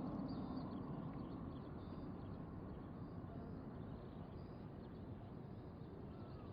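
Faint outdoor ambience: a low rumble of traffic noise slowly fades away, with a few faint bird chirps.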